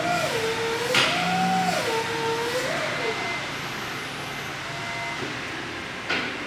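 Raymond swing reach truck's electric drive whining as the fork carriage swings round. The whine dips and rises in pitch twice, with a sharp click about a second in and another near the end.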